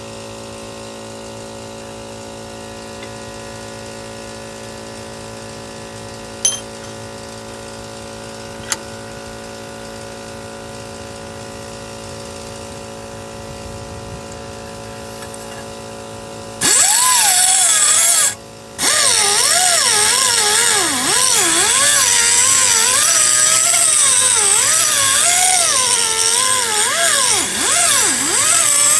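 An electric power tool runs steadily at first. About 17 seconds in, it starts grinding the steel edge of a zero-turn mower blade: a loud, harsh grinding whose motor pitch wavers up and down as it loads. It stops for a moment just after it starts, then carries on.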